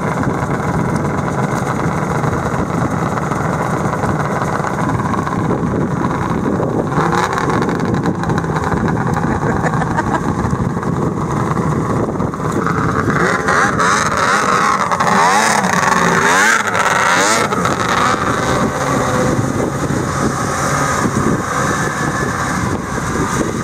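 Several snowmobile engines running and pulling away across the snow. Engine pitch rises and falls with revving about halfway through as sleds accelerate.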